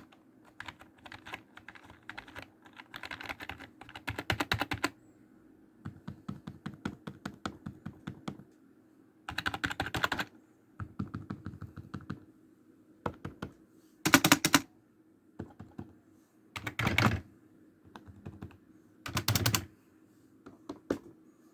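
Typing demonstration on a foldable keyboard and a standard rubber-dome keyboard: rapid keystrokes in short bursts separated by pauses. Some bursts are much louder than others, showing the large difference in sound between the two keyboards.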